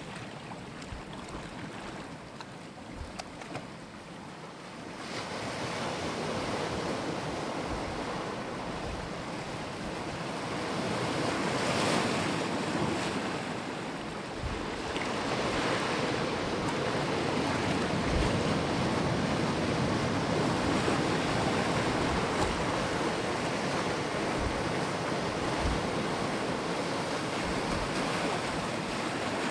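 Sea waves breaking and washing up the shore, swelling louder about five seconds in, with the loudest wave around twelve seconds. Low buffeting from wind on the microphone.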